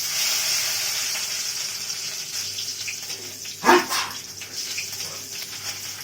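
Spices hitting hot oil in a pan for tempering, sizzling loudly at once and slowly settling. About two-thirds of the way through a man sneezes once, loudly, set off by the fumes of the frying spices.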